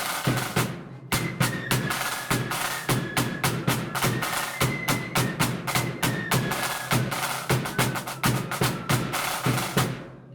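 Marching flute band playing a tune: flutes carrying the melody over rapid snare drum strokes and bass drum beats. The playing breaks off briefly about a second in and stops just before the end.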